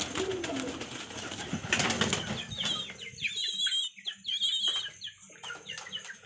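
A young Shirazi pigeon beating its wings in a rapid flurry while held and let go. From about halfway in, a string of high, wavering bird chirps joins it.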